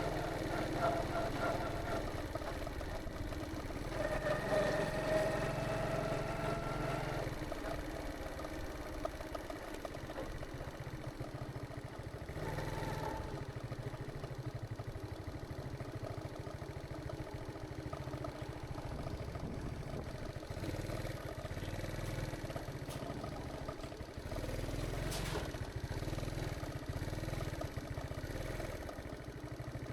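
A small engine running, its pitch rising slowly twice in the first several seconds as it speeds up, then running on steadily.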